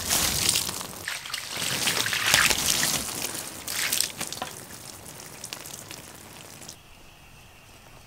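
Water poured from a bucket splashing and running over freshly sawn pine slabs. It is loudest in the first four seconds or so, then trails off to a trickle and stops about seven seconds in.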